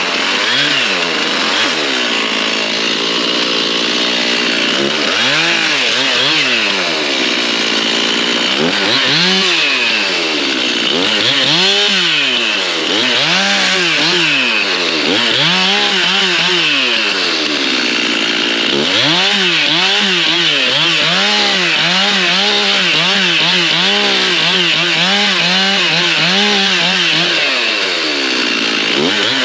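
Stihl MS 391 two-stroke chainsaw cutting limbs from a felled hardwood tree. It is revved up and down again and again, its pitch rising and falling every second or two, with a few short steadier stretches between cuts.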